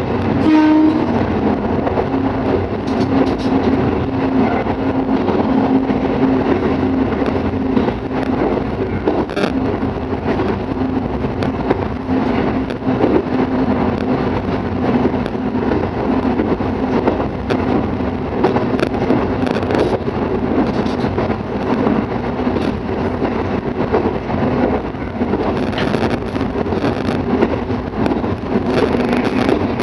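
Shimabara Railway diesel railcar running between stations, heard from on board: a steady drone of engine and wheels on rail, with a humming tone held under it.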